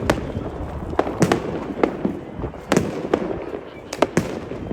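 New Year's fireworks going off: about ten sharp bangs at irregular intervals, some in quick pairs, over a constant low rumble of more fireworks.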